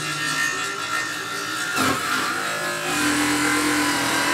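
A vehicle engine running steadily. There is a sharp knock a little before halfway, and about three seconds in the engine note steps up and holds steady.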